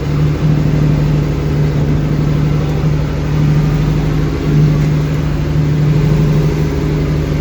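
Fishing boat's engine running steadily at constant speed, a low even drone with a hum.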